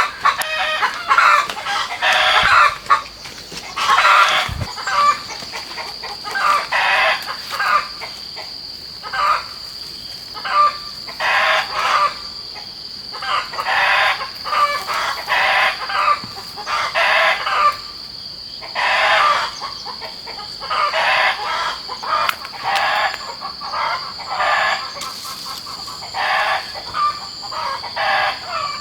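Chickens clucking and calling in many short, irregular bursts, with a rooster crowing now and then, over a steady high-pitched whine.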